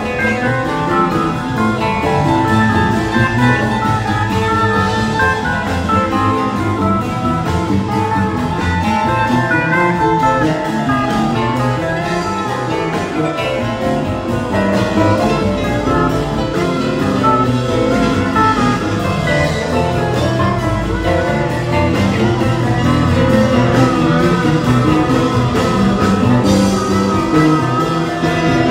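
Live band playing an instrumental stretch, led by guitars over keyboard, played loud through the stage sound system.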